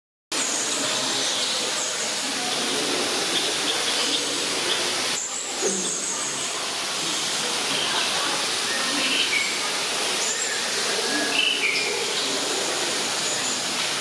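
Steady rushing hiss of falling water, with short high bird chirps now and then.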